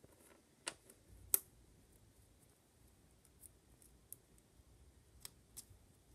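A few light, sharp clicks of small hard parts being handled: two about a second in, the second one the loudest, and two fainter ones near the end.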